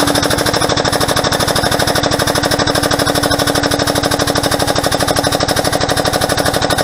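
Hydraulic shop press's pump running with a rapid, even pulsing and a steady hum underneath, driving a press brake attachment.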